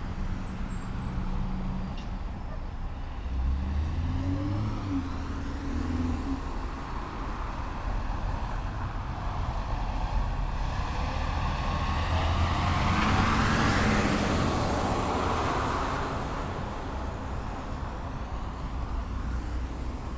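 Street traffic with engines running low, and a vehicle passing close by about two thirds of the way through, its tyre noise swelling and then fading.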